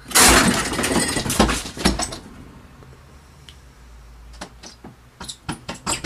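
A sudden crash and about two seconds of rattling clatter as a cat hurls itself into a window, then a few sharp taps and knocks from about four seconds in.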